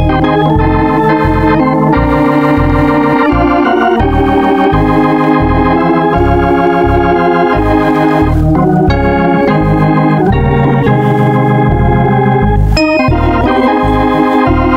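Organ music playing held chords over an evenly pulsing bass line.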